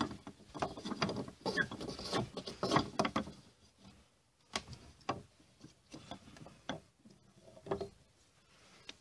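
Handling noise against a weathered wooden plank wall: irregular clicks, taps and scrapes, busy for the first three seconds, then scattered single clicks.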